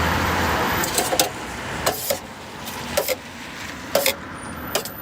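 A passing road vehicle fades away in the first second, followed by sharp knocks roughly once a second, each with a brief ring.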